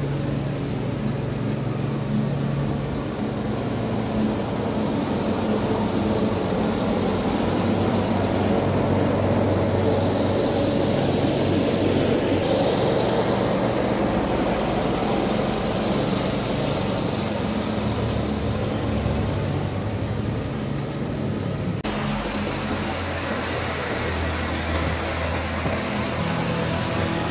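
Small petrol engine of a lawn mower with a grooming attachment running steadily as it grooms the turf. It grows a little louder midway.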